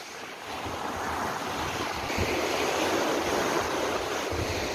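Large lake waves breaking and washing up the shore in a strong wind, the surge building over the first couple of seconds, with wind rumbling on the microphone.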